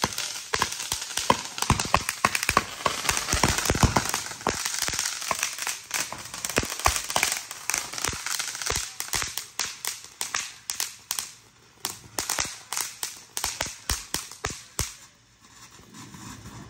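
Ground fireworks crackling: a fast, dense run of sharp pops that thins out and stops about fifteen seconds in, followed near the end by the quieter hiss of a spark fountain.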